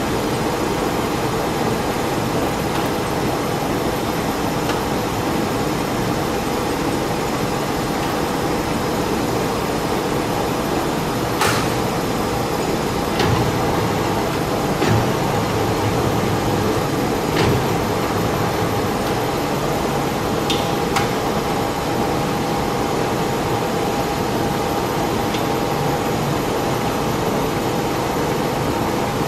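1956 Warner & Swasey 3A saddle-type turret lathe running with a steady mechanical hum. A handful of sharp clicks and clunks come through the middle as the saddle is worked by hand.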